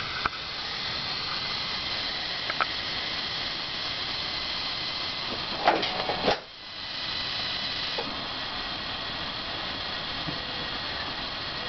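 Steady hissing from a pair of Chennic 400 W DC-to-DC converters in an electric car, with faint high steady tones in it: a funky hissing noise that the owner has found in all three units of this kind and is reasonably confident is normal. About six seconds in come a couple of clicks, after which the hiss dips sharply and builds back up within about a second.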